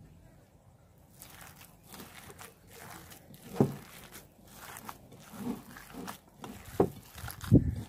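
A hand kneading and squeezing a moist minced-chicken chapli kabab mixture in a bowl, working in a handful of gram flour. It makes irregular wet squishing and rustling, with a few louder squishes about 3.5 s in, near 7 s and near the end.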